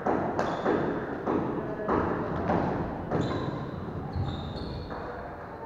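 Badminton rally in an echoing hall: sharp knocks of rackets striking the shuttlecock and players' feet landing on the wooden court, several a second, thinning out after about three seconds.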